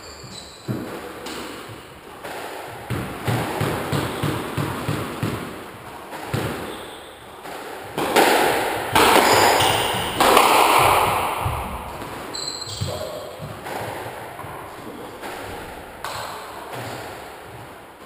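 Squash rally: repeated sharp smacks of the ball off the rackets, the walls and the wooden floor, echoing around the enclosed court. The hits come thickest and loudest about eight to eleven seconds in.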